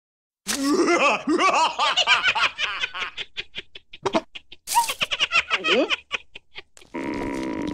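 Cartoon larva character's voice laughing hard in rapid short bursts that trail off; a steady hum starts near the end.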